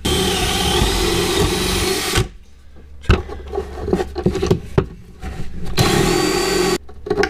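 Cordless drill running at full speed for about two seconds, boring into a wooden block. Then come a few seconds of small clicks and handling as a screw is set on the bit, and near the end a second, shorter run of about a second driving the screw.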